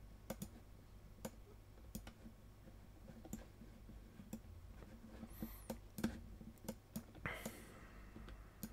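Computer mouse buttons clicking: scattered single clicks at an irregular pace, faint and close.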